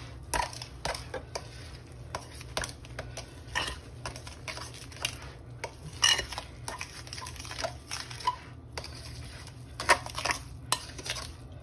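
A metal utensil scraping and clinking against a glass mixing bowl as chunky potato salad is stirred, with irregular clicks and scrapes throughout.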